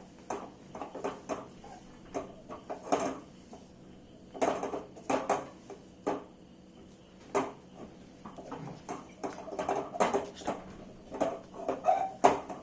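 Spatula scraping and knocking against a kadhai while stirring a thick roasted gram-flour (besan) mixture, in irregular strokes.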